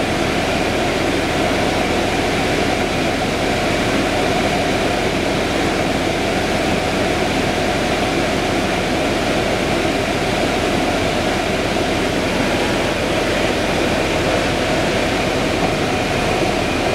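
Steady cabin noise inside a 2011 Orion VII hybrid bus standing still, its engine and ventilation running with a thin steady whine above the hum.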